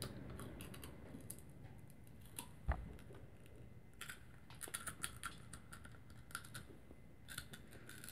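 Faint crisp crackling and clicking as a peanut and honey bar is bitten and pulled apart by hand, coming in clusters about four seconds in and again near the end. A single soft thump about two and a half seconds in.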